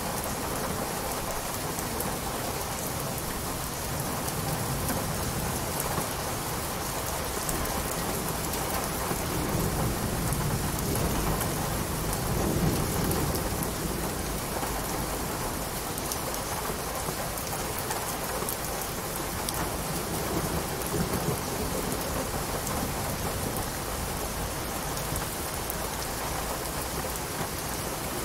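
Steady heavy rain, with a low rumble of distant thunder swelling and fading near the middle.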